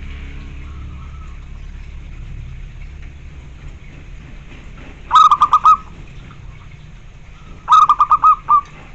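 Zebra dove (perkutut) cooing: two short runs of quick, clipped notes, one about five seconds in and a slightly longer one near the end.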